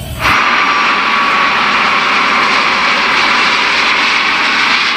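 Airbus BelugaXL jet engines running steadily as the aircraft flies low. The sound starts suddenly just after the beginning.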